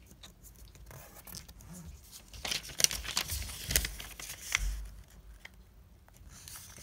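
Sheet of origami colour paper being folded along its diagonal and creased flat by hand: crisp rustling and crackling of the paper, busiest from about two and a half to five seconds in, with a couple of dull thuds as the hands press the fold down on the table.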